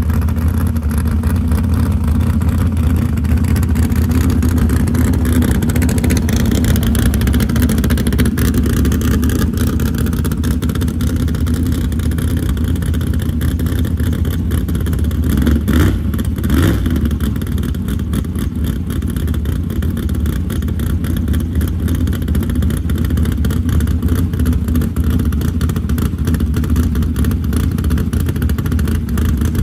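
Small-block Chevy V8 of a 1987 GMC Jimmy drag truck running with a steady, deep rumble as it pulls up and sits idling. Two brief knocks sound about halfway through.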